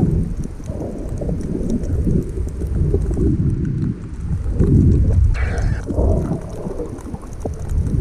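Muffled, fluctuating rumble of water moving against an underwater camera housing just below the sea surface, with a brief higher hiss about five seconds in.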